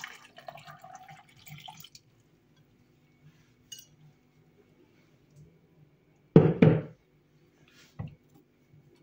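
Water trickling and dripping into a plastic blender beaker of chopped apple and pear for about two seconds as the pour ends. About six and a half seconds in come two loud knocks, and a smaller click near the end.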